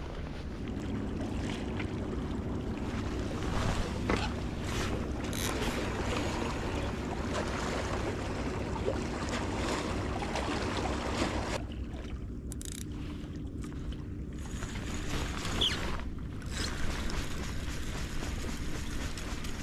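Wind rumbling on the microphone over sea water lapping against shore rocks, with a faint low steady hum underneath.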